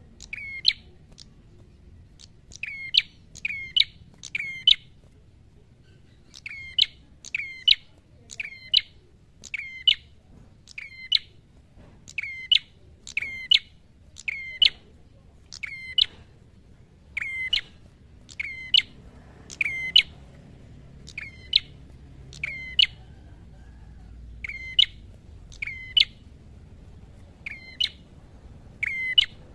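Ashy tailorbird (prenjak kepala merah) calling in a long series of short, sharp notes, roughly one a second and often in quick pairs, with a brief pause early on: the bird's loud, aggressive 'fighting' song.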